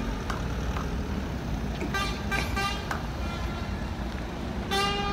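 Fire trucks' engines rumbling steadily as they drive past, with short horn toots about two to three seconds in and a long horn blast starting near the end.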